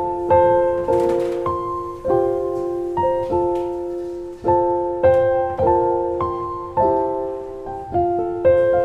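Slow, gentle solo piano music. Single notes and soft chords are struck about every half second to a second, each left to ring and fade.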